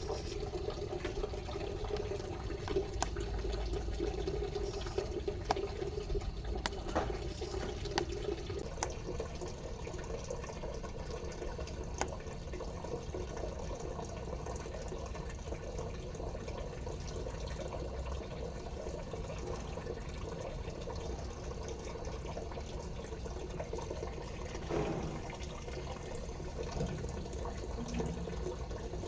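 Water running steadily from the outlet tap of a homemade instant water heater, with a few faint clicks.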